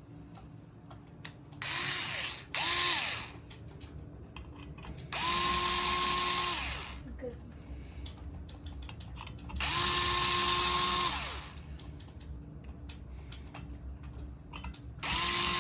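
Electric screwdriver running in five bursts, two short ones then three longer ones, the motor whine rising, holding steady and winding down each time, with small handling clicks between: backing screws out of the fan's LED light assembly.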